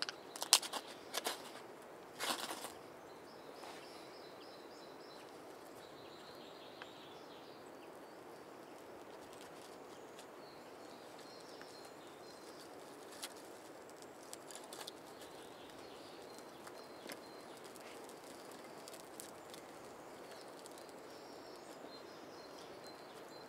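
Quiet woodland ambience: a steady faint hiss with faint distant bird chirps, a few sharp wooden clicks in the first few seconds as split kindling is handled, and scattered small crackles later as the kindling fire takes.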